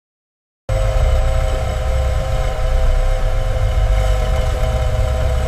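Car engine idling steadily with a deep rumble. It cuts in abruptly from silence less than a second in.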